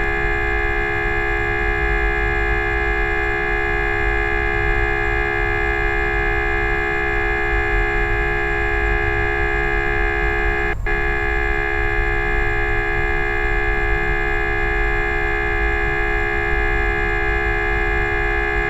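A steady, unbroken horn-like drone of several held tones at once, with a split-second break about eleven seconds in.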